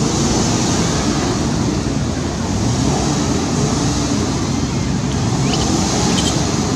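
Steady wind rumble and buffeting on the microphone, with a few faint, short high-pitched squeaks near the end.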